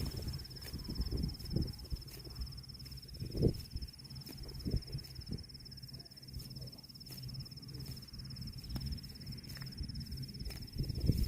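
A steady, high insect trill, like a cricket's, runs without a break over low rumbling, with a few short knocks, the loudest about three and a half seconds in.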